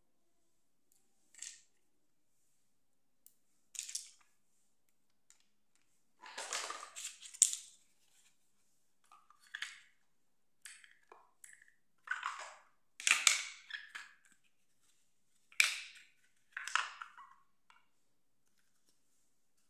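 Small hard-plastic toy pieces handled and set down on a tiled floor: scattered clicks and clatters in short clusters, with quiet gaps between them.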